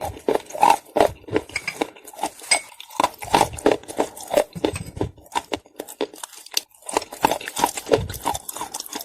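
Close-up crunching and chewing of hard edible clay: an irregular run of crackling bites and chews, easing off briefly about two-thirds of the way through.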